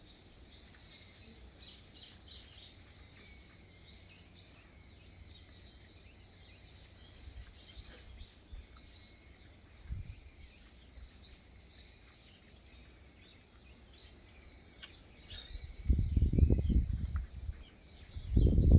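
Small birds chirping and singing continuously in many short, overlapping calls. A short low thump comes about halfway through. Loud low rumbling comes in bursts near the end.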